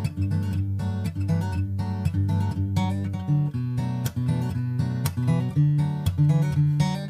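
Background music with strummed acoustic guitar and a steady beat.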